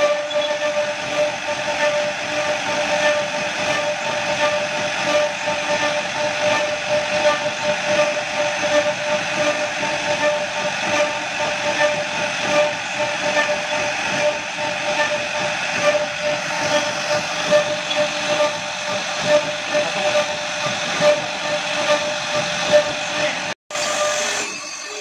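Twin-spindle CNC wood router running, its spindles giving a steady high whine over the hiss of the bits cutting into wooden panels. The sound drops out for an instant near the end.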